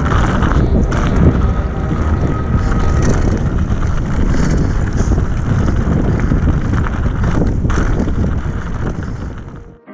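Commencal Supreme FR downhill mountain bike descending a rough dirt trail, heard from a GoPro on the rider. Wind rushes on the microphone over the tyres on dirt and the rattle of the bike, with a few brief knocks. It fades out in the last second.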